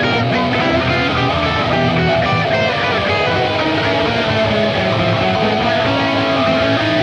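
Music of distorted, overdriven electric guitars, loud and steady.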